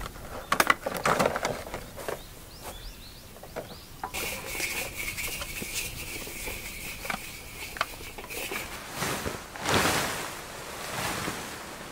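Clinks and light knocks of camp gear and tableware, then a steady high buzz that starts suddenly and runs for about four seconds, then a burst of tent fabric rustling as the tent is taken down.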